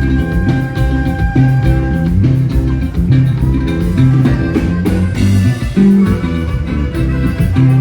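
A regional Mexican group playing an instrumental dance passage: a bouncing bass line under held melody notes with a steady beat, and no singing.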